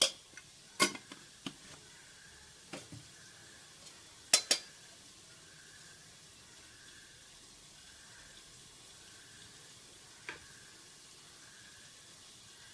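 Metal spoons clinking against a metal cooking pot and its ladle as spice powder is tipped in: a few sharp clinks in the first five seconds, the loudest two in quick succession about four and a half seconds in, and one more about ten seconds in, over a faint steady hiss.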